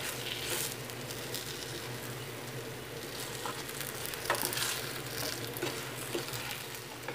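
Banana balls sizzling in a pan of hot sugar glaze while a spatula stirs and turns them, with scattered light knocks of the spatula against the pan.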